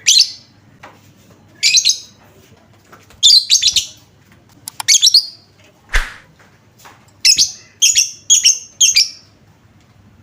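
Lovebird giving a string of short, shrill chirping calls, each lasting under half a second and coming about once a second, with one sharper sound about six seconds in. It is a lure call of the kind played to set other lovebirds calling.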